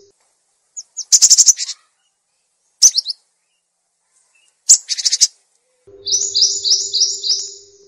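Edited birdsong mix of a domestic canary combined with great tit (gelatik batu) and sunbird (kolibri) calls: short high chirps and two fast trills separated by pauses, then a run of about five repeated notes near the end over a faint low hum.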